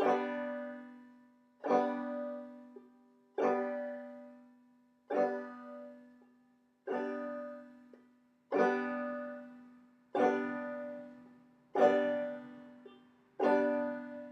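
Banjo strummed with slow clawhammer brush strokes, the striking finger brushing down across all the strings. Nine strums come about every one and three-quarter seconds, each the same open chord ringing out and fading before the next.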